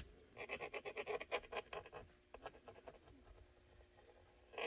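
White pencil drawn across a molded black Kydex holster shell, a run of faint, quick scratchy strokes as a cut line is marked, tailing off to a few light rubs about halfway through.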